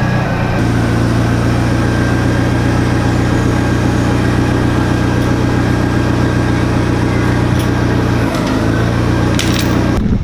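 An engine idling steadily, with a brief dip about eight seconds in.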